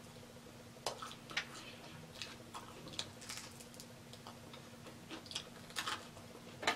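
Close-miked chewing of fried chicken wings: soft, irregular mouth clicks and wet smacks, a few every second or so, over a faint steady hum.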